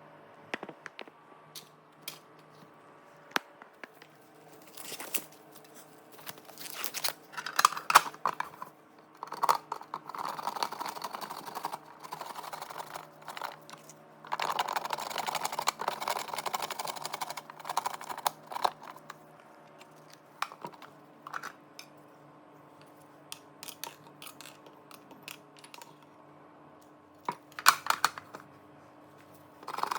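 Food-preparation handling sounds: scattered clicks and knocks with several stretches of rustling and scraping, over a faint steady hum.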